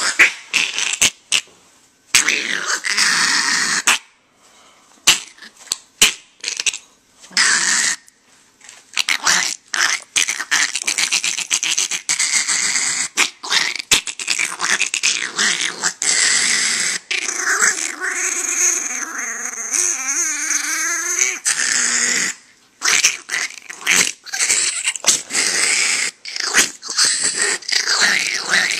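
Chihuahua growling in short spurts at first, then almost without a break, its pitch wavering near the middle.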